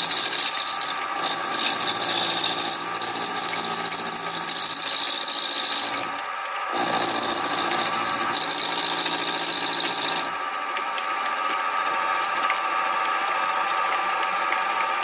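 Sieg SX2P mini mill side-milling the eccentric strap with an end mill: a shrill, high-pitched cutting noise over the steady hum of the spindle motor. The cutting breaks off briefly about six seconds in and stops about ten seconds in, while the spindle keeps running.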